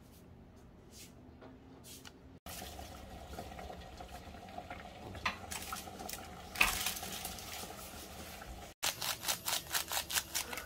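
Water at a rolling boil in a steel pot, bubbling, starting a couple of seconds in, with one sharp clatter partway through. Near the end a quick run of taps and rustles as a seasoning packet is shaken over a pot of boiling ramen noodles.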